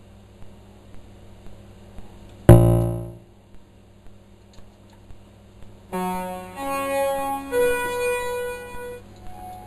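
Electronic keyboard (e-piano) notes: one loud note sounds suddenly about two and a half seconds in and fades within a second, then from about six seconds several held notes overlap and change pitch for about three seconds.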